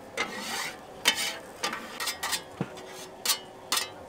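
Metal cooking utensils clinking and clattering against pots and pans in short, sharp knocks, about ten of them at uneven intervals.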